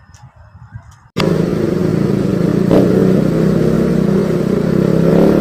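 Quiet for about a second, then an abrupt cut to motorcycle riding sound: the engine running under loud, steady wind noise, picked up by a helmet-mounted action camera's external mic whose foam is covered with stretched surgical-glove rubber.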